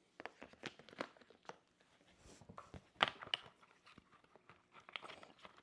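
Packaging and parts being handled by hand: scattered clicks, taps and short rustles, with the sharpest click about three seconds in.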